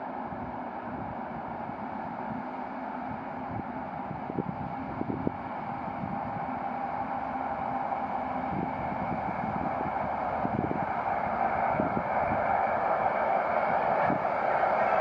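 DR class 118 (V180) twin-engined diesel-hydraulic locomotive running as it approaches, growing steadily louder, under heavy wind noise on the microphone.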